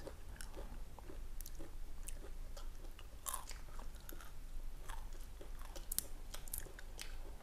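Quiet, irregular chewing and crunching of a Bento Squid Seafood Snack Hot & Spicy, a sticky, multi-layered squid-and-surimi sheet that is sticky but a bit crunchy and a bit soft.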